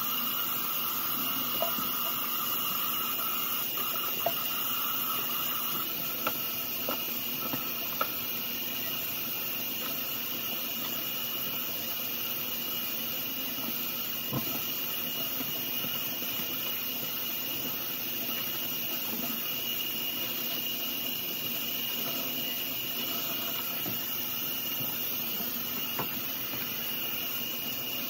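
Kitchen tap running steadily into a stainless steel sink, with a few light clicks and knocks as baby bottles and parts are handled under the stream.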